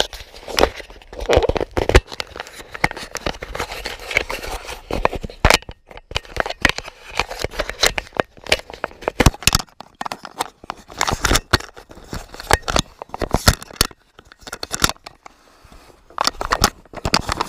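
Irregular knocks, clicks and scrapes of scrap being handled and pulled off a load, with a brief lull about three-quarters of the way through.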